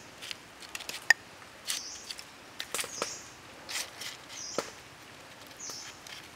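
A spoon clicking and tapping against a skewered raw octopus and a wooden chopping board while chili-oil sauce is spread on, with short brushing swishes from a leaf dabbing the sauce about every second. A sharp click about a second in is the loudest.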